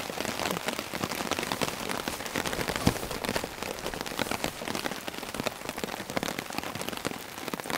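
Heavy rain falling steadily, with many separate drops ticking close by, and one louder tap about three seconds in.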